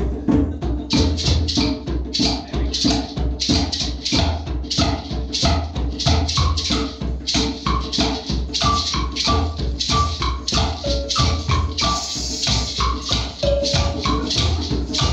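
Group percussion: African hand drums played in a fast, steady rhythm, with shakers rattling on the beats. A short high note repeats over it in the second half.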